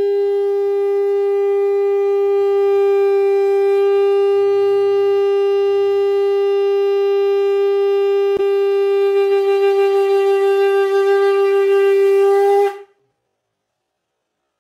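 Conch shell (shankh) blown in one long, steady note lasting about thirteen seconds. It wavers slightly near the end before stopping abruptly. It is blown as the ritual call before a Hindu home shrine is opened.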